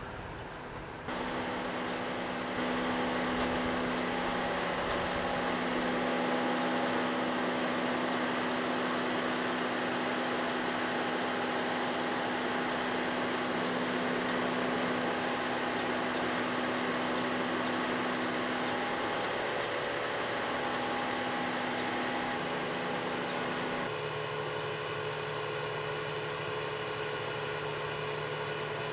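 Steady mechanical hum over a broad hiss, with several steady tones that shift abruptly about a second in and again near the end.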